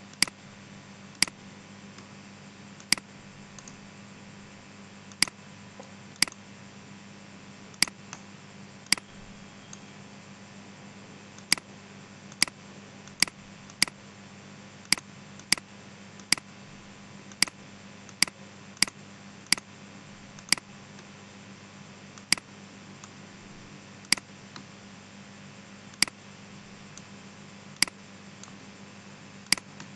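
Computer mouse button clicking: single sharp clicks at irregular intervals, roughly one a second, over a steady low hum and hiss.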